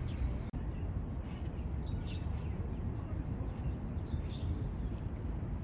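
Outdoor ambience: a steady low rumble with a few faint bird chirps, the clearest about two seconds in and again about four seconds in.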